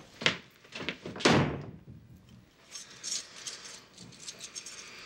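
Apartment door with a metal security bar and deadbolts being handled: a few latch clicks, one loud bang about a second in, then keys jingling.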